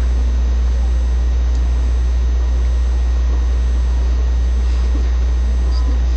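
A loud, steady low hum with a faint hiss above it, unchanging throughout.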